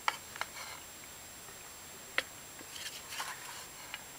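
Wooden spatula knocking and scraping against a metal tray as rice is spooned out: several sharp clicks with short stretches of scraping between them.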